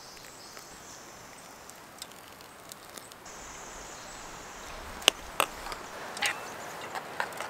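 Hot water poured from a camp pot onto oats in enamel bowls, a faint steady hiss. In the second half, metal spoons scrape and clink sharply against the enamel bowls several times as peanut butter and oatmeal are stirred.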